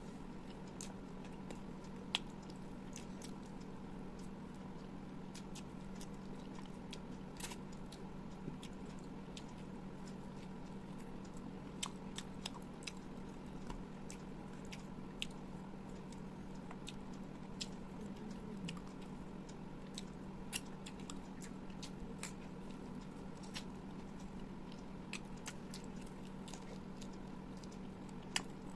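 Close-miked chewing and biting, with scattered sharp wet clicks and small crunches every second or so, over a steady low hum.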